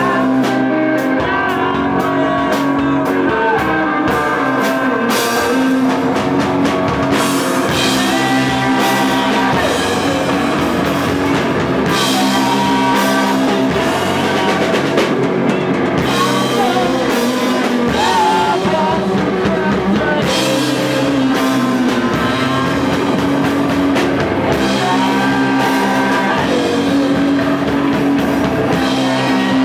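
Rock band playing live: drum kit with cymbals and guitars, at a steady loudness.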